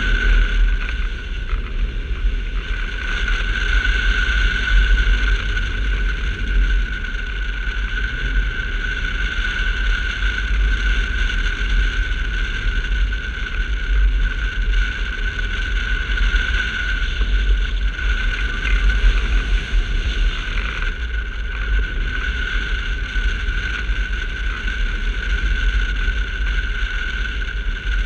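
Airflow buffeting a camera mounted on a hang glider in flight: a steady, heavy low rumble of wind on the microphone, with a constant high whistle above it.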